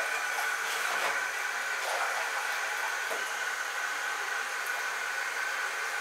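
Kitchen tap running steadily with a faint whine, with a few light knocks.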